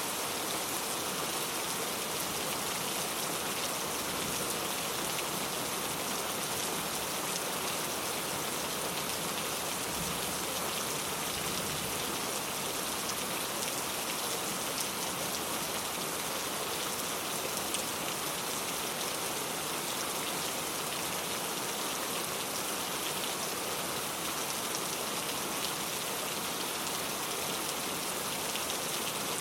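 Steady rain falling, with the fine patter of many drops hitting a surface.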